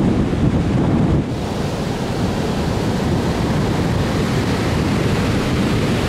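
Ocean surf breaking and washing up a sandy beach, with wind buffeting the microphone. About a second in the low rumble eases and the hiss of foamy water running over the sand comes forward.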